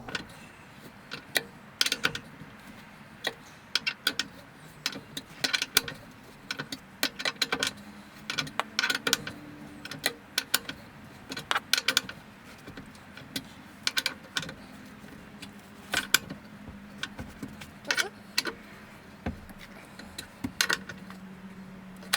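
Irregular metallic clicks and clinks of a socket wrench and socket working on the Torx bolts of a swivel seat base as they are tightened. A faint steady hum runs underneath.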